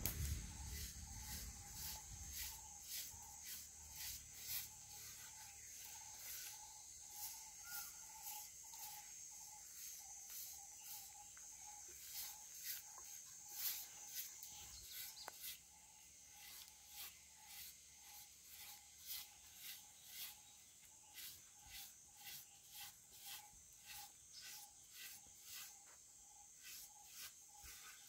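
Soft rhythmic scraping and rubbing of hands working finger millet flour against the inside of a clay pot, about two strokes a second, a little quieter from about halfway. Under it runs a steady high insect drone with a quick repeated chirping.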